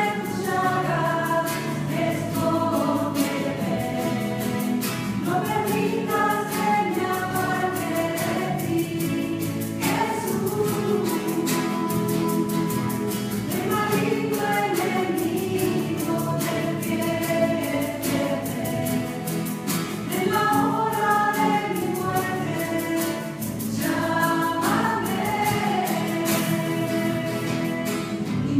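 A small worship group singing a Catholic hymn, with a man's voice through a microphone, accompanied by two strummed acoustic guitars and a cajón, echoing in a chapel.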